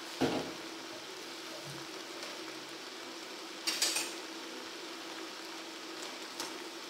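Corn kernels frying in a stainless steel pan with a steady sizzle and a low hum underneath. A metal spoon knocks against the pan just after the start, clatters on it a few times near the middle, and clicks once more near the end.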